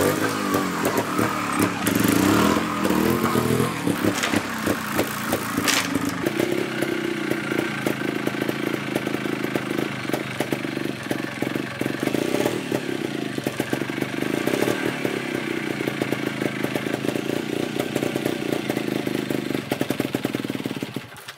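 Trials motorcycle engine running at low revs while the bike is balanced in place, with throttle blips and revving in the first few seconds, then a steady low idle with short quick blips. It fades out at the very end.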